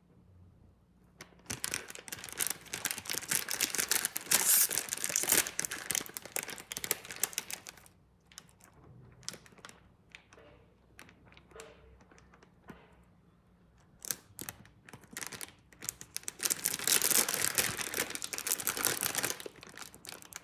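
Plastic instant-noodle packet crinkling as it is handled and turned over, in two long stretches of several seconds each, with a few lighter crackles in between.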